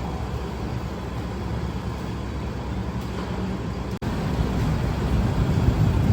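Steady low rumble of outdoor street traffic noise. It drops out for an instant about four seconds in and comes back louder.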